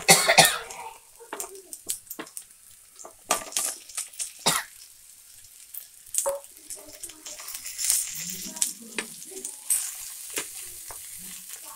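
Food frying in a nonstick pan: onions, green chillies and curry leaves sizzling in oil, then fried chicken pieces being tossed with a steel spatula that knocks and scrapes against the pan in sharp clicks. The loudest burst of sizzling and clatter comes right at the start.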